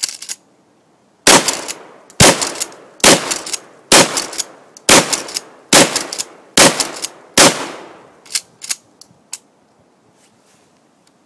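Shotgun fired eight times in quick succession, about one shot a second, each shot ringing off briefly. A few lighter clicks follow near the end.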